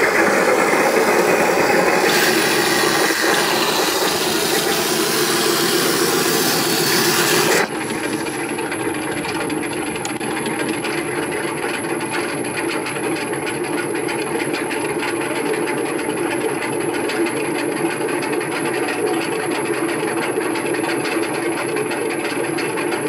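Small electric drive motors and plastic tracks of a homemade tracked robot running, a steady grinding rattle. About eight seconds in the sound drops a little and goes on steadier, with a faint high whine.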